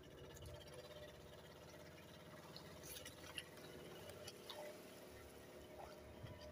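Near silence: faint water sounds against a wooden boat's hull, with a few small clicks about halfway through.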